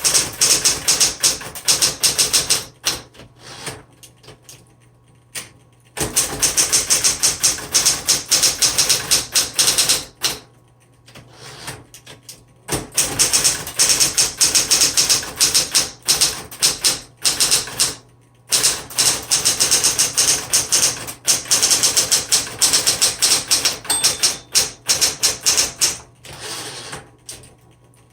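1966 Smith Corona Coronet Electric typewriter being typed on: rapid runs of sharp keystroke clacks in several bursts, broken by pauses of a few seconds. A steady low hum from its running electric motor sits underneath.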